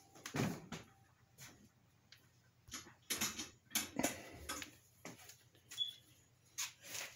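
Irregular light clicks, taps and rustles of hands and tools handling things, about a dozen scattered through, the loudest about half a second in, with one brief high squeak near the end.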